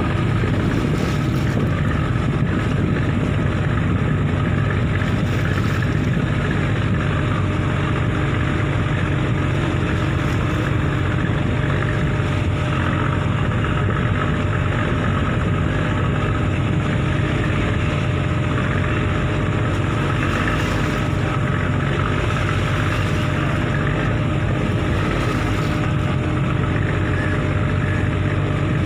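Steady low drone of a harbour ferry's engine heard from on board, an even hum that does not change, with a rushing hiss of water and wind over it.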